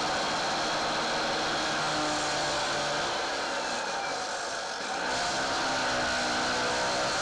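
Circular saw fitted with two concrete blades, cutting a shallow groove in a concrete floor: a steady motor whine over grinding noise, dipping slightly in level about three to five seconds in.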